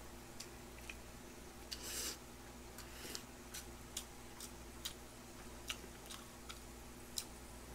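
Faint sounds of a man eating spicy cold noodles: a short slurp about two seconds in, then quiet chewing with scattered small clicks.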